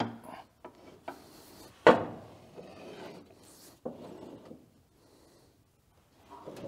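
The sharpening-stone actuator motor of a John Deere 6000 series chopper being turned by hand, driving the stone up against its end-stop switch: rubbing and scraping with irregular metal clunks, the loudest a sharp knock about two seconds in.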